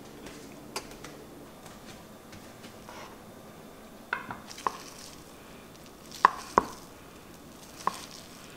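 Sharp clicks and knocks of kitchen tools: metal tongs clacking as a cooked chicken breast is set on a wooden cutting board, then a knife knocking against the board as it slices through the chicken. The loudest knocks come as a close pair past the middle.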